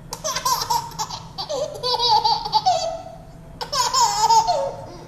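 Baby laughing in two long fits of high-pitched giggling, the first about three seconds long, the second starting a little past halfway.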